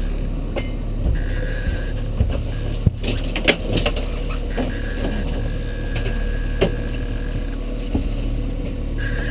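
Boat engine running steadily at trolling speed, with a handful of sharp clicks and knocks about three to four seconds in and a couple more later.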